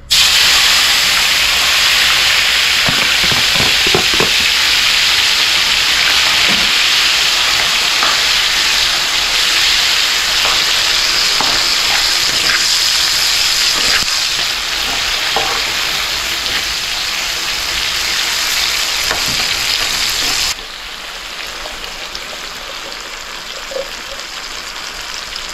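Chopped tomatoes and onions hitting hot oil in a frying pan and sizzling loudly, with a spoon knocking and scraping as they are stirred. The sizzle drops suddenly to a quieter level about 20 seconds in.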